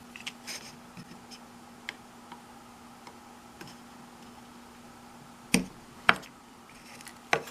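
Light clicks and taps of small plastic toothbrush parts and tools being handled on a work surface, with two sharper knocks a little over halfway through and another near the end.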